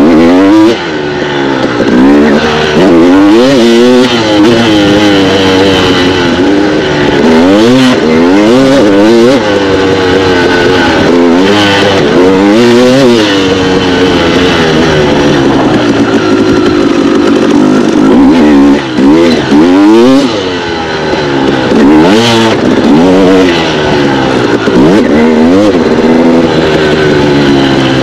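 2016 KTM 250 XC two-stroke dirt bike engine heard on board while ridden hard, its pitch climbing and falling over and over as the throttle is opened and shut. The level dips briefly about twenty seconds in.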